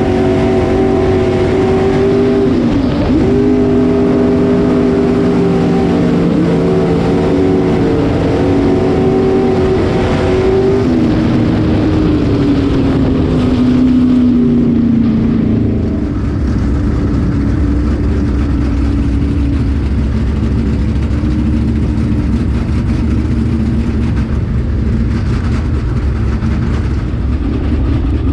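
Street stock race car engine heard from inside the cockpit on a dirt track, held at steady revs with two brief lifts of the throttle, then winding down about eleven seconds in and running on slowly at low revs.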